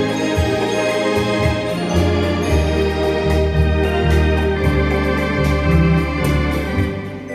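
Organ music played live on a keyboard through a sampled MIDI organ system: sustained chords over a moving bass line, the notes changing about twice a second, easing off near the end.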